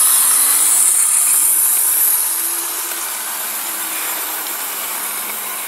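Electric model train running on its track: a steady high hiss of the motor and wheels on the rails, with a faint low motor hum, easing off a little after about two seconds.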